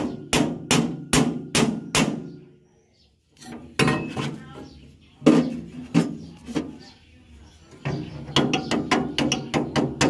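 Hammer striking the steel blade sections on a rice harvester's cutter bar while the cutting blade is being changed. It starts with a run of sharp metal blows about two and a half per second. After a short pause come a few spaced blows, and near the end a quicker run of blows.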